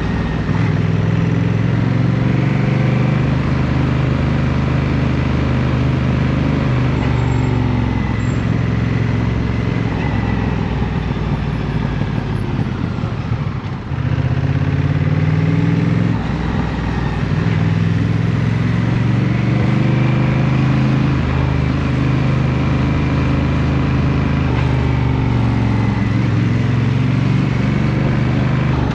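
Honda CMX 1100 Rebel's parallel-twin engine running on the ride, its pitch rising and falling as the bike speeds up and slows. The engine dips to a low point about halfway through, then picks up again.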